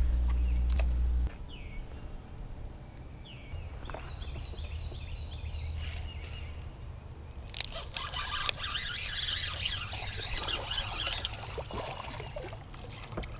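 Spinning rod and reel being worked: a faint rhythmic whir from the reel a few seconds in, then a louder rushing outdoor noise with scattered light clicks as the rod is cast.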